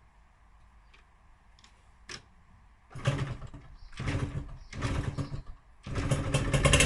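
Yamaha DTR125 two-stroke single-cylinder engine being started: quiet at first, then three short bursts about a second apart as it fires briefly, and about six seconds in it catches and keeps running loudly.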